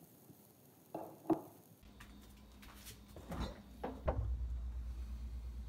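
Stainless-steel refrigerator door being handled and pulled open: a few light knocks and clicks, then a low steady hum sets in about four seconds in.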